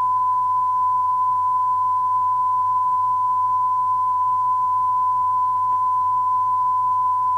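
Television test-card tone: a single steady high-pitched tone held unchanging over a faint low hum. It is the line-up tone broadcast with the test card before a station's sign-on.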